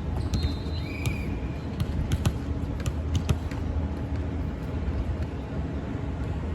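Volleyball court ambience: a steady low rumble with scattered sharp knocks and a short high squeak about a second in.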